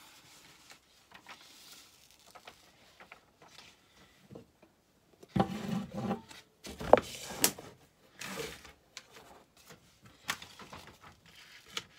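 A large printed sheet and its plastic wrapping being handled and smoothed flat on a table: rubbing and rustling, with a burst of louder crinkling and knocks a little past the middle and a sharp click about ten seconds in.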